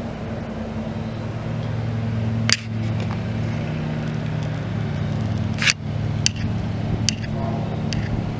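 A diesel locomotive engine running with a steady low hum, broken by a handful of sharp clicks, the first about two and a half seconds in and the rest in quicker succession near the end.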